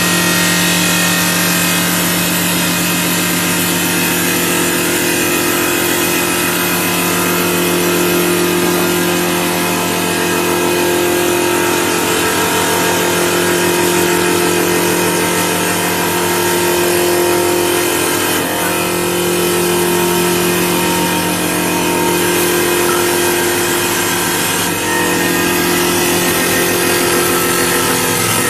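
CNC wood lathe running: a steady motor hum with a dense hiss over it, the hum slowly wavering up and down in pitch.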